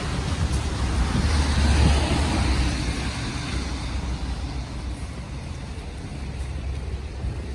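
A car passing by, loudest about two seconds in and then fading away, over a steady low rumble.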